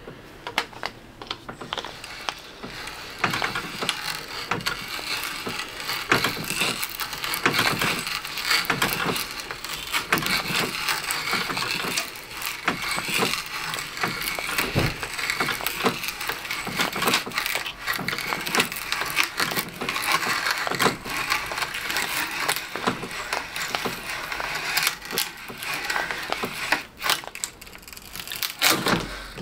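Large auger bit boring through plywood: a continuous dry scraping and crackling of wood being cut, broken by many sharp clicks.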